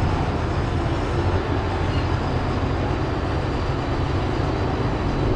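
Jet airliner engines rumbling steadily at a distance, an even low roar with no clear pitch.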